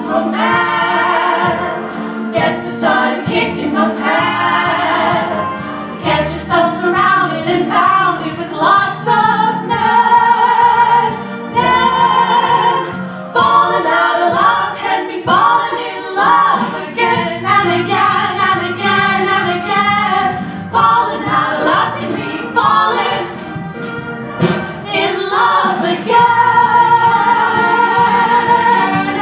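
Three women singing a show tune together in harmony, with music under them and several long held notes, the last one near the end.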